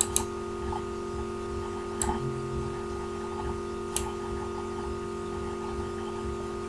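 Computer mouse clicking: three single clicks about two seconds apart, over a steady electrical hum.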